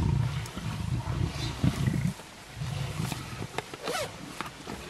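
Lions growling low as they feed together on a warthog kill, in repeated deep bouts with short breaks between.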